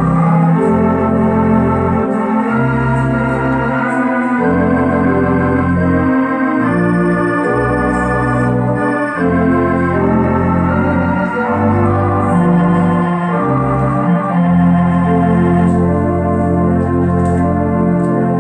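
Multi-manual organ with pedalboard playing a slow piece in sustained full chords over held deep pedal bass notes, the chords changing every second or two.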